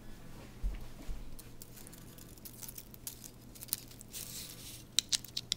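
Tin foil crinkling with scattered sharp clicks and taps as a foil-wrapped small bulb and a D battery are handled and pressed together, after two low thumps about a second in.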